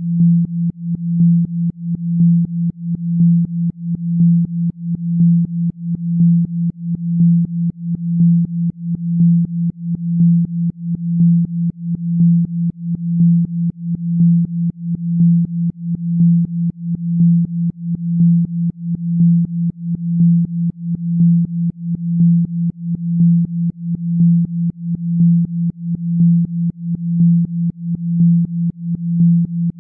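A synthesized low tone near 175 Hz, pulsing in a steady regular rhythm, played as a Rife 'healing frequency' meant for regenerating the spine.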